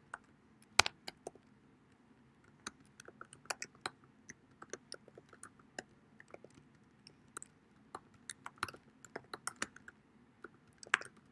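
Typing on a computer keyboard: quick, uneven runs of key clicks with short pauses between words, one keystroke a little under a second in louder than the rest.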